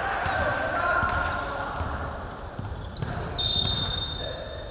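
A basketball being dribbled on a hardwood gym floor, low thuds repeating in an echoing hall, with players' voices. About three and a half seconds in, a loud, steady high-pitched tone starts and fades away.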